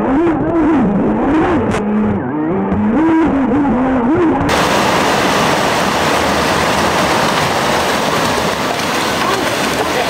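Electric RC jet boat's motor and water-jet pump whining, the pitch rising and falling as the throttle is feathered in rapids. About four and a half seconds in, it gives way abruptly to the steady rush of river white water.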